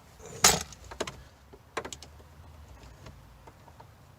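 Hand tools and small metal parts being handled: one loud clack about half a second in, then a few lighter clicks and taps.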